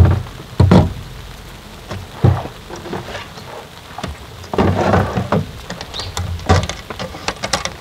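Rain falling, with large drops landing in irregular, loud, sharp thumps every second or two over a steady patter.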